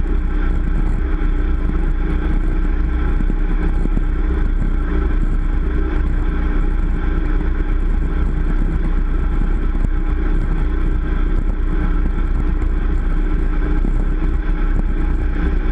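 Motorboat engine running steadily at towing speed, pulling a water skier, over a steady rush of wind and churning wake.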